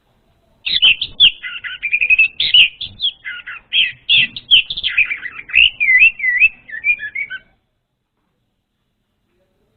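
Orange-headed thrush (anis merah) singing a rapid, varied phrase of whistled notes and warbled trills for about seven seconds, then falling silent; a lure song meant to draw a freshly caught bird into singing.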